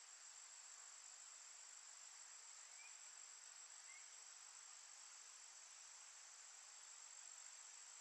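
Near silence: faint woodland ambience with a steady, high-pitched insect drone and, twice, a faint short chirp.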